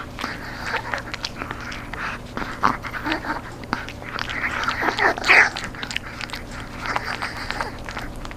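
Chihuahua gnawing a dried, crispy duck knee-joint chew, with many short crunches and cracks as its teeth work the hard treat, and a louder flurry of crunching about five seconds in.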